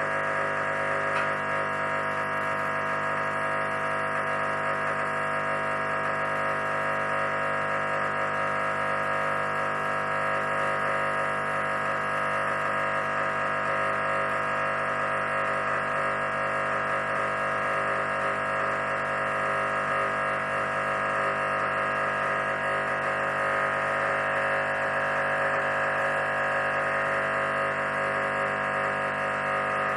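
Espresso machine pump running steadily against a blanking disc, backflushing the group head with Puly Caff cleaner: an even, unchanging buzzing hum.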